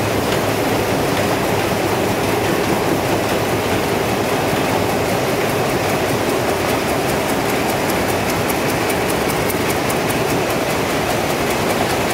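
Vamatex Leonardo dobby rapier looms running at full speed in a weaving shed: a loud, steady, dense mechanical clatter of many looms beating and shuttling at once.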